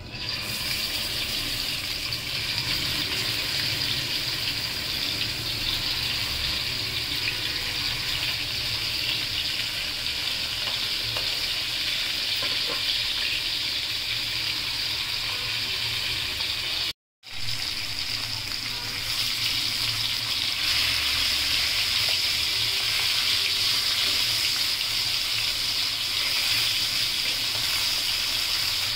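Hot oil sizzling steadily as whole climbing perch (koi fish) fry in a pan, with a momentary break just over halfway through.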